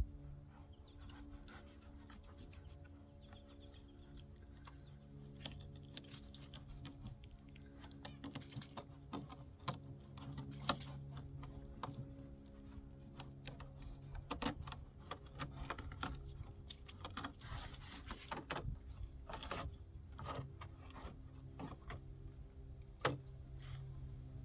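Irregular clicks, taps and scrapes of a knife and hands filleting crappie on a cutting surface, busiest after about five seconds in, over a steady low hum.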